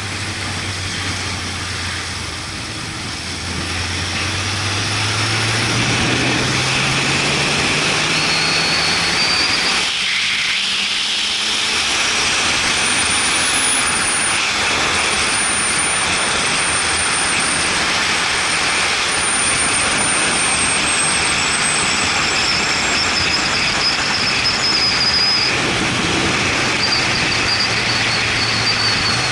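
Motorcycle engine running under steady loud wind rush on the microphone while riding. The engine note climbs slowly in pitch over the first ten seconds, dips briefly, then the wind rush covers it at steady speed.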